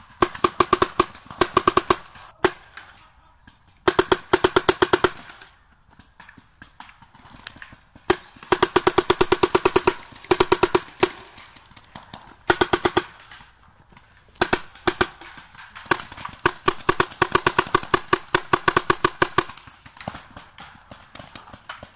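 Adrenalin Angel LCD electropneumatic paintball marker firing in rapid strings of shots, many a second. Each string lasts about one to three seconds, with short pauses between.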